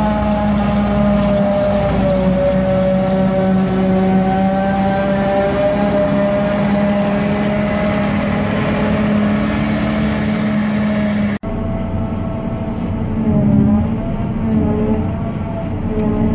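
John Deere self-propelled forage harvester running steadily as it picks up a grass swath, a loud machine drone with several steady tones. About three-quarters of the way through, the sound cuts to inside the cab: duller, with the pitch wavering up and down.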